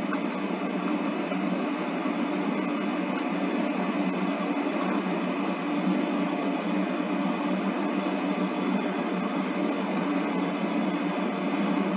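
Steady background noise: an even hiss with a low hum underneath, unchanging throughout.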